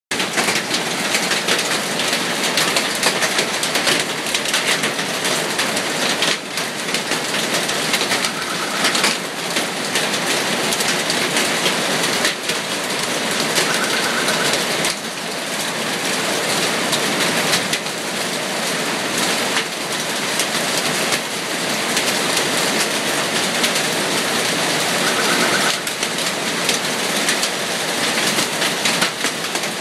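Hail and heavy rain pelting the street and surrounding surfaces: a loud, dense, steady hiss made of countless small impacts.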